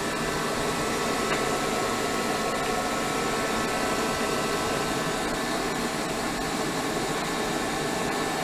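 Steady whirring machine noise, like a fan running, with a few faint steady tones in it; a faint click about a second in.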